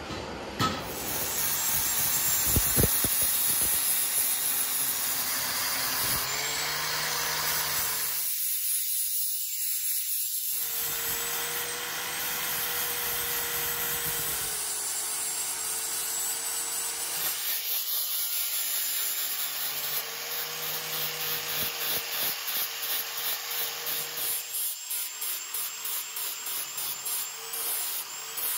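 Abrasive power tool grinding or sanding against the workpiece: a steady motor hum under a hissing scrape, which pulses about twice a second in the second half as the piece is worked back and forth.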